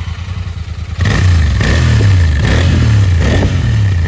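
Royal Enfield Continental GT 650's parallel-twin engine through its stock exhaust, idling and then revved in several quick blips starting about a second in.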